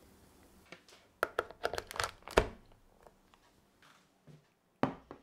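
A spatula scraping crispy fried diced chorizo into a small ceramic bowl, with a run of sharp clicks and clinks as it taps against the bowl. Near the end comes a single knock as a saucepan is set down on a wooden cutting board.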